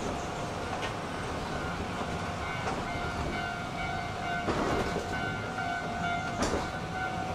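Kintetsu Ikoma Cable car running on its rails, heard from inside the car: a steady rumble with a few sharp knocks from the wheels. A steady high ringing tone starts about two seconds in and keeps on to the end.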